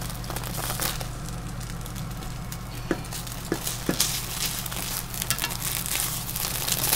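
Rolled egg omelette (tamagoyaki) sizzling and crackling in a non-stick frying pan as a plastic slotted turner pushes and presses the roll, with a few sharper taps of the turner on the pan about three to four seconds in.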